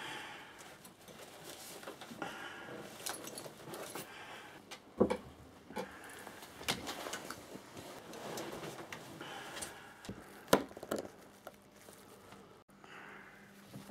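Breathing through a gas mask, a slow hiss every few seconds, with three sharp knocks of small objects set down on a wooden table.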